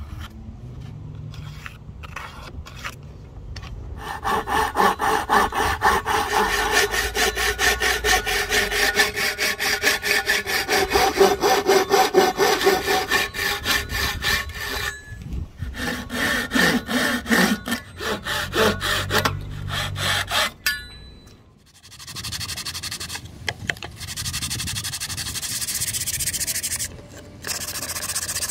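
A double-edged pull saw cutting thin slots into a small wooden board in quick, even strokes, starting a few seconds in and pausing briefly midway. In the last several seconds a steadier rubbing takes over: the wooden wedge being sanded by hand against an abrasive.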